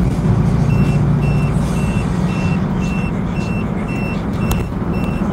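In-cab engine and road noise of a vehicle at highway speed, with a short high electronic beep repeating about twice a second from under a second in: the vehicle's speed limit alarm warning that it is over the limit.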